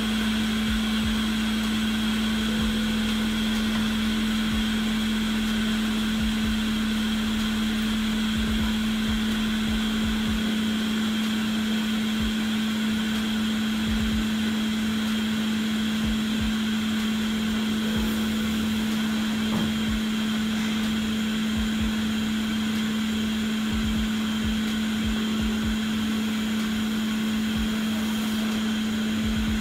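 Small electric blower motor running steadily: a constant hum with an airy hiss over it.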